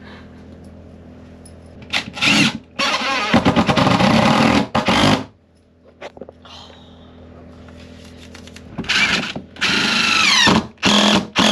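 DeWalt cordless drill/driver driving screws into a boat's wooden frame in short bursts. There are three runs in the first half, a pause, then more runs near the end, and one of these falls in pitch as it loads up.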